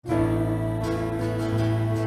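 Gentle music with long held chords, coming in abruptly right after a brief dropout.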